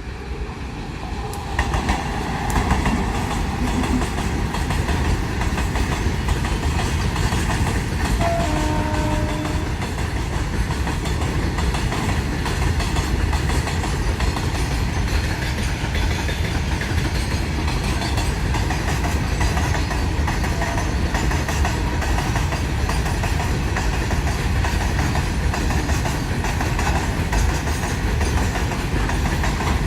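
Goods train running on the rails: a steady rumble and rattle of wheels and wagons. A short, faint tone sounds once a little after eight seconds in.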